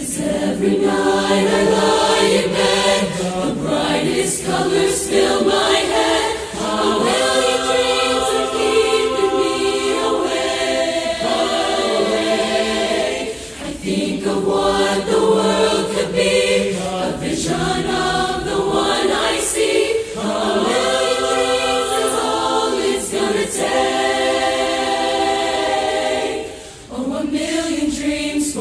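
Youth barbershop chorus singing a cappella in close harmony, in sustained chords. The phrases break briefly about every six or seven seconds.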